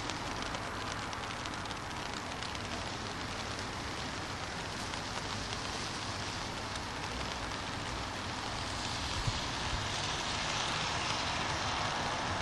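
Steady rain on a city street mixed with the hiss of car tyres on the wet road, swelling louder about three-quarters of the way through.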